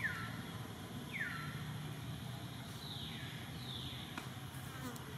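An animal's high calls, four short descending slides in pitch, coming about a second apart, over a steady low hum.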